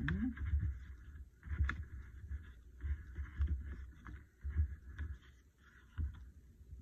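Glue stick rubbed over a paper cutout and hands pressing it down onto a card, with repeated dull bumps on the tabletop.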